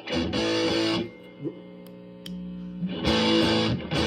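Les Paul Jr.-style electric guitar played through a fuzz pedal into a Fender Super Champ amp, both of the pedal's bass and mid boost switches up: a heavily fuzzed chord, cut off about a second in, leaving a faint ringing, then struck again about three seconds in. The boosts give it a lot more low end.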